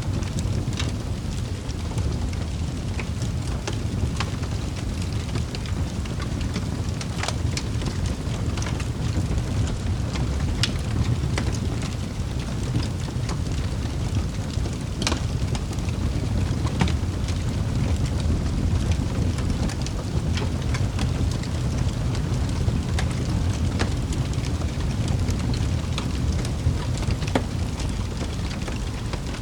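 Wood fire burning in a fireplace: a steady low rush of flames with irregular sharp crackles and pops, one louder pop about halfway through.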